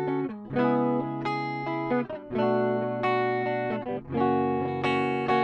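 Fender Blacktop Jaguar HH electric guitar with twin humbuckers played on a clean tone: ringing chords struck one after another, a new chord about every second.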